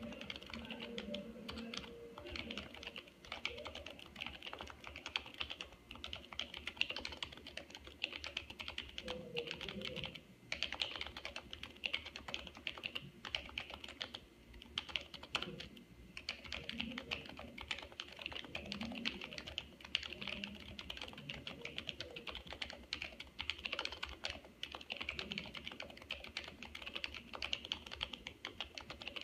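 Continuous fast typing on a Happy Hacking Keyboard Professional 2 Type-S, whose silenced Topre electrostatic-capacitive keys give a dense run of key strokes, broken by a few short pauses about ten and fifteen seconds in.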